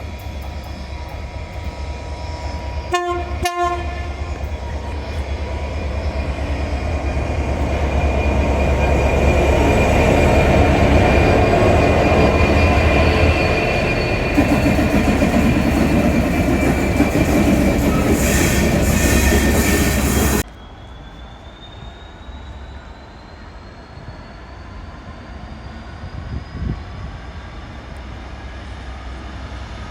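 A train sounds two short horn blasts, then runs past loudly with rumbling wheels for about ten seconds. The sound cuts off suddenly about two-thirds of the way through, leaving a quieter background with a faint, slowly rising whine.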